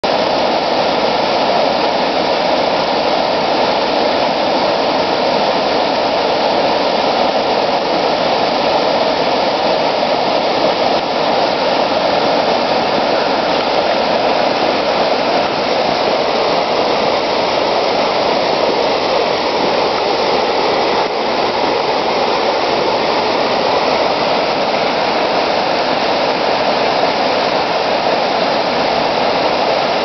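Small creek waterfall pouring over icy, snow-covered rocks: a steady, even rush of falling water.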